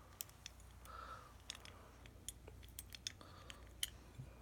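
Faint, scattered small metallic clicks and taps: a deadbolt and lock-picking tools being handled as a tension wrench is fitted into the keyway.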